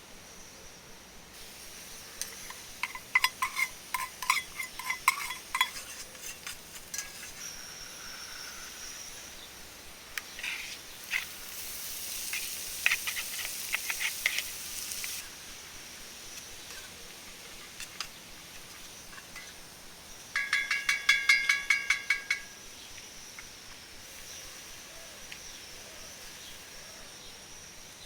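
Metal utensil clinking against a cooking pot in two quick runs of ringing clicks, with a stretch of hissing in between.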